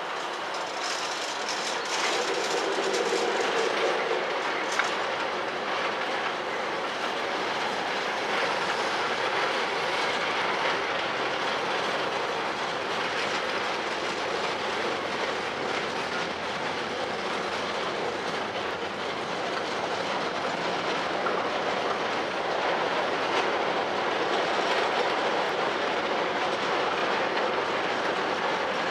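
Long freight train of open steel box wagons rolling past, a steady rumble with the wheels clattering over the rail joints.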